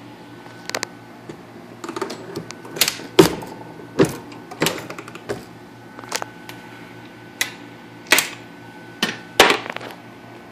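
Star Universal progressive reloading press being cycled to load .45 ACP rounds: an irregular run of sharp metal clicks and clacks from the handle, shell plate and case feed. The loudest clacks fall about three and four seconds in and near the end.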